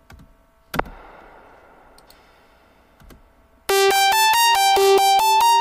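Playback of an electronic music project: a single sharp hit with a hissing tail that fades over about two seconds, then, from a little under four seconds in, a bright synthesizer playing a quick melody of short notes over a held note, much louder.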